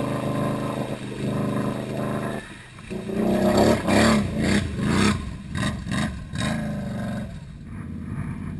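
Can-Am Renegade ATV engine revving hard in repeated rising-and-falling bursts as the quad's tyres spin in deep mud, flinging it up. Near the end it gives way to a quieter engine running steadily.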